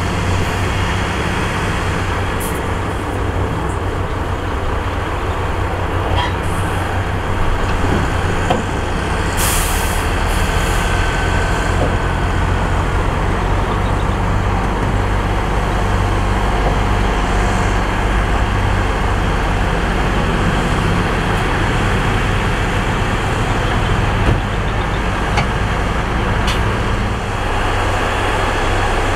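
Heavy diesel construction machinery running steadily with a deep low rumble. A short burst of air hiss comes about nine and a half seconds in.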